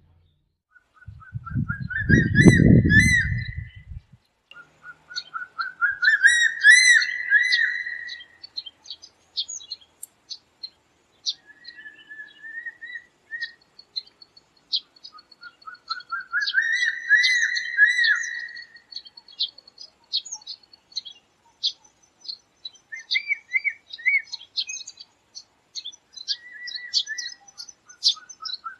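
Eagle calling: a series of whistled notes climbing in pitch, about two to three seconds long, given four times, with short high chirps in between. A brief low rumble comes about a second in.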